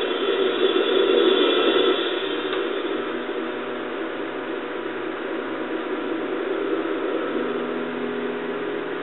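Oxy-acetylene welding torch flame hissing steadily as it heats and welds a steel patch panel. It is louder for the first two seconds, then settles to a slightly quieter, even hiss.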